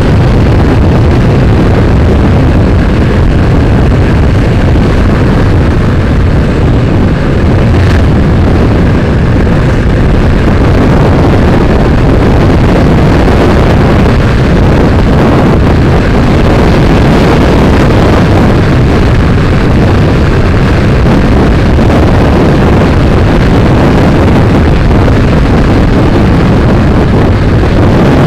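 Wind buffeting on the microphone of a moving motorcycle, a steady loud rumble with the bike's engine and road noise underneath.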